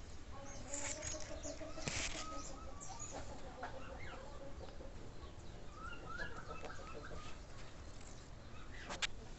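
Birds calling, some short and some drawn out, with a brief sharp noise about two seconds in and another near the end.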